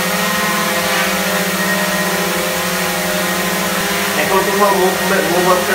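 DJI Mavic 2 Pro quadcopter hovering, its four propellers giving a steady, many-toned hum. A man's voice joins about four seconds in.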